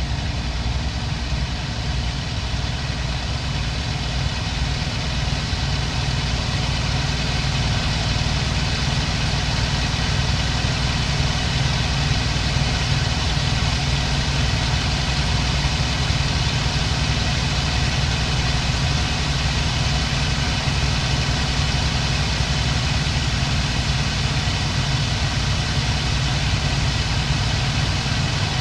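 Daimler-Benz DB 605 inverted V12 engine of a Bf 109G-2 running steadily, heard from inside the cockpit. It grows a little louder over the first several seconds, then holds an even note.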